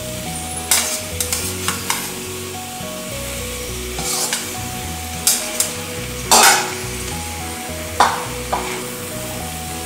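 Bhaji masala sizzling in a frying pan while boiled green peas are spooned in from a bowl, the metal spoon scraping and knocking against the bowl several times. The loudest scrape comes a little past the middle.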